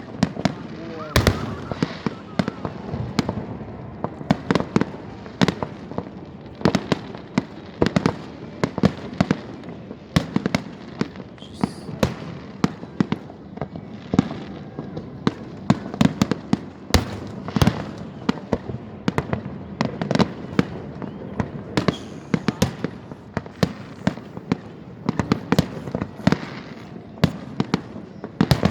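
Fireworks display: aerial shells bursting in a rapid, irregular barrage of sharp bangs, several a second, with the rumble of launches and bursts between them.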